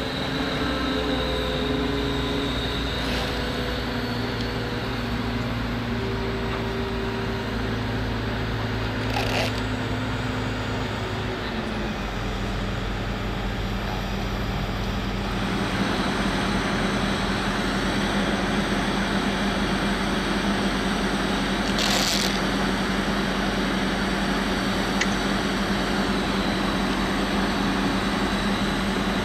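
Diesel engine of a Terex mobile crane truck running steadily. About twelve seconds in its hum shifts in pitch, and about fifteen seconds in it turns louder and rougher as the engine speed rises. Two brief hisses come at about nine and twenty-two seconds.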